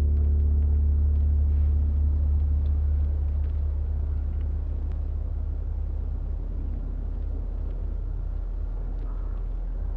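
A deep, steady low rumble, with the last ringing tones of a gong-like chord dying away over the first couple of seconds. The rumble eases slightly after about three seconds.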